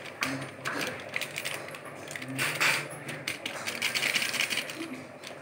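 Plastic spice packet crinkling and crackling as it is squeezed and shaken to empty masala powder out of it, with scattered light clicks and two louder bursts of crinkling, about two and a half and four seconds in.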